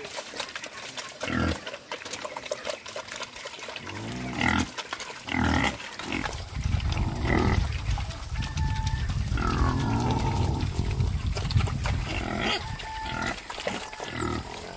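Wild boar grunting: a series of short grunts, then a stretch of dense low, rumbling noise through the middle.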